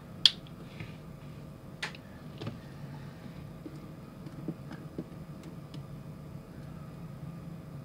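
Small clicks and taps of tiny parts being handled: metal tweezers, a small screw and a screwdriver bit knocking together. One sharp click just after the start, two more about two seconds in, then a few faint scattered ticks.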